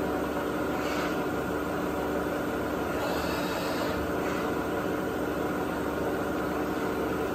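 Tree Journeyman 310 CNC vertical mill running, a steady machine hum made of several held tones. Short higher whirs come about a second in and again from about three to four seconds in as the table traverses.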